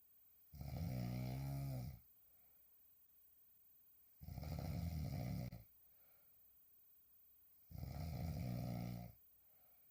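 A woman snoring hard while sleeping on her back: three long snores, each about a second and a half, spaced about three and a half seconds apart, with quiet breathing between.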